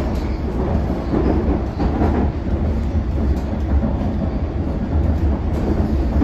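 Inside a London Underground Circle line S7 stock train running through the tunnel: a steady deep rumble of wheels and traction, with a few faint clicks from the track.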